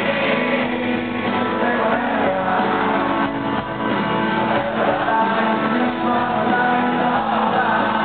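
Live rock band playing: strummed acoustic guitar over drums, with singing.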